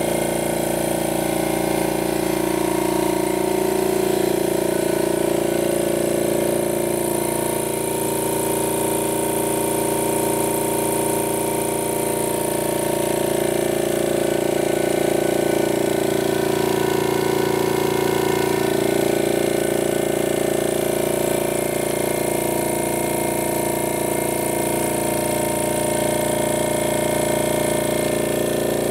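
Oil-free 'silent' air compressor with twin cylinder heads running steadily, a constant even hum with a fine rapid pulse.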